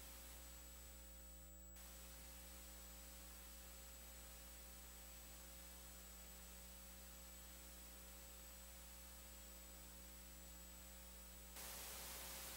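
Near silence: a steady electrical hum and hiss with no voice, the hiss growing louder about a second before the end.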